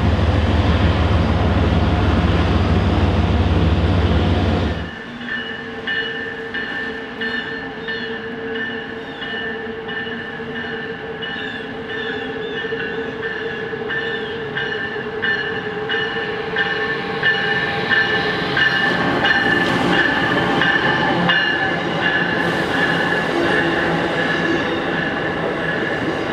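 A loud low rumble for about the first five seconds, cutting off suddenly. Then an Amtrak train hauled by a Siemens ACS-64 electric locomotive approaches around the curve into the station, with steady high whining and squealing tones, growing louder.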